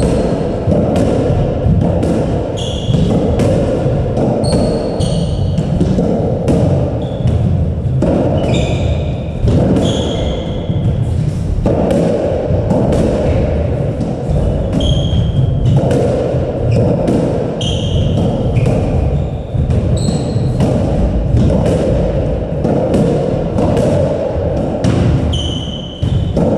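Squash rally: the ball smacking repeatedly off the rackets, the walls and the wooden court floor, with short high squeaks of court shoes on the floorboards in between.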